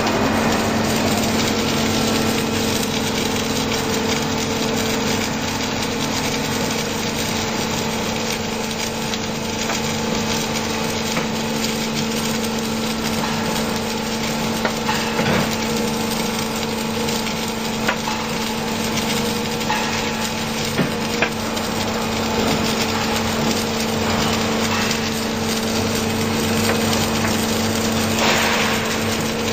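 H-beam welding machine running: steady machine noise over a constant low hum, with a few faint ticks.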